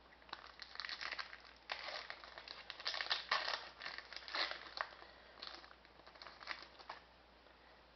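Trading-card pack wrapper crinkling and tearing as a pack of hockey cards is opened and handled: a run of faint, irregular crackles that thins out after about five seconds.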